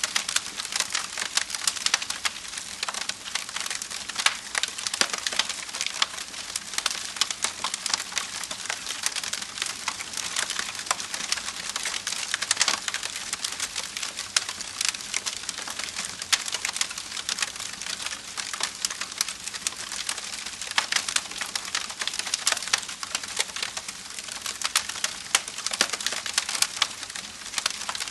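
Wood fire crackling and popping steadily, with dense irregular snaps and a soft hiss underneath.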